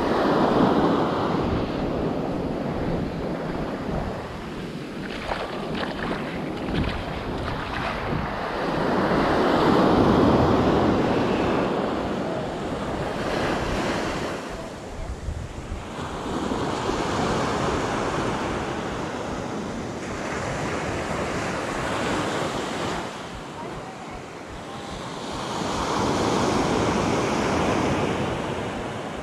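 Ocean surf breaking and washing up the sand, swelling and fading four times in slow waves, with wind buffeting the microphone.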